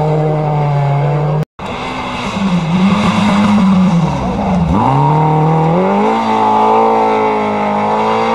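Rally car engines running hard at high revs. The first is held at a steady pitch until a sudden cut about a second and a half in. A second car's engine then rises and falls, dips sharply about five seconds in, and climbs back to hold high revs.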